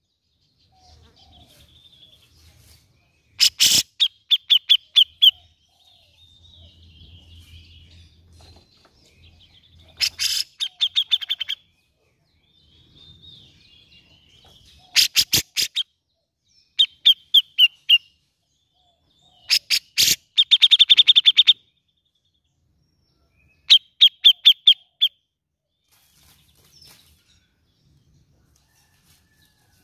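Cucak jenggot (grey-cheeked bulbul) calling in six loud bursts of fast repeated harsh notes, each burst about one to two seconds long. Softer chattering comes between the bursts.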